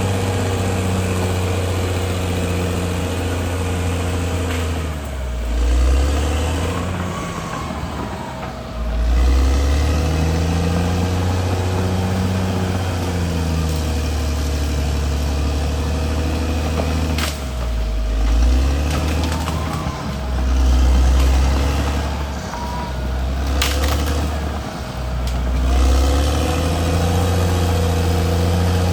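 Caterpillar D6R XL bulldozer's diesel engine running under varying load, its pitch sagging and picking back up about five times, with a thin steady whine alongside.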